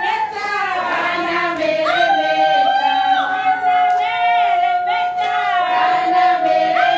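A choir singing, holding one long note through the middle.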